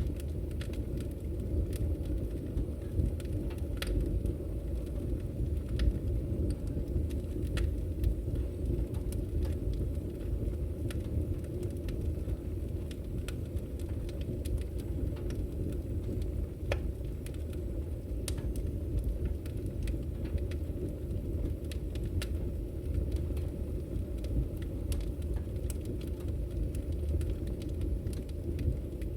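Open wood fire burning, with a steady low rumble and scattered, irregular sharp crackles and pops.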